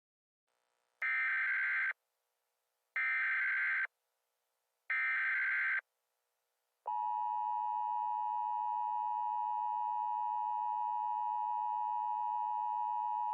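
Emergency Alert System alert tones: three short bursts of SAME header data, each about a second long and two seconds apart, then the steady two-tone EAS attention signal starting about seven seconds in.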